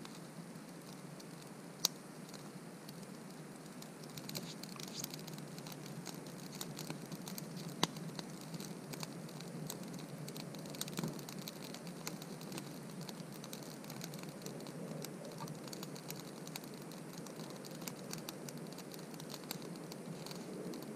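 Campfire of dry tinder and split sticks catching and crackling, with many small sharp pops that grow thicker after a few seconds. Two louder single snaps stand out, once about two seconds in and again near eight seconds.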